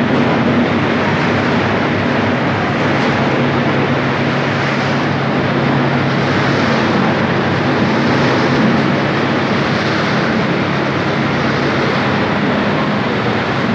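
Potato chip processing line running: conveyors carrying fried chips, a loud, steady machine noise with a low hum underneath.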